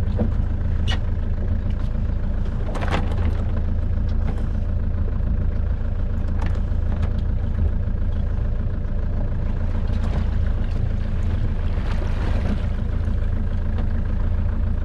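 Motor boat's engine running with a low, steady drone, with a few short clicks and knocks.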